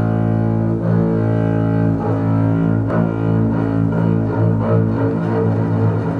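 Double bass played with a bow: a long, low sustained note with its overtones ringing, wavering slightly a few times.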